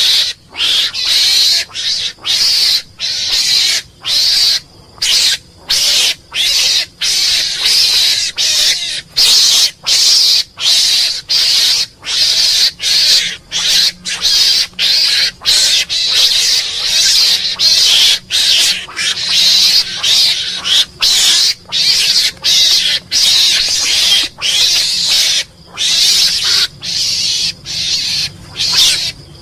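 Mongoose calling: a continuous string of short, hissy, high-pitched calls, about one a second, separated by brief gaps.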